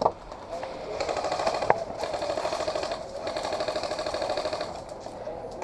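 Airsoft electric gun firing on full auto: a fast, even buzzing rattle in two long bursts, the first about two seconds and the second about a second and a half.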